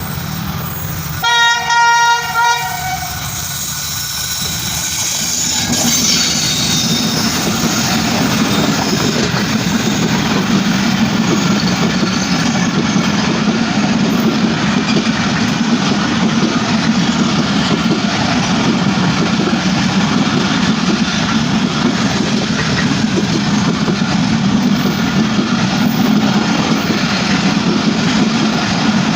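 A train horn sounds in a few short blasts about a second in. It is followed by the steady rumble of a train running along the rails.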